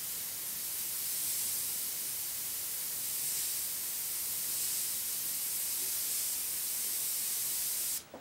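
Gravity-feed dual-action airbrush spraying ink up close, a steady hiss of air at low pressure with the MAC valve turned well down. The hiss cuts off suddenly near the end as the trigger is released.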